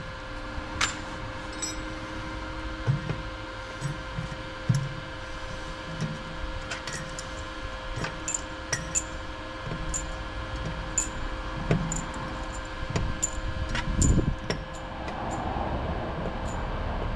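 Small sharp metal clicks and clinks, scattered irregularly, with a few low knocks, as welded dent-pulling pins are removed from a car's steel quarter panel, over a steady background hum.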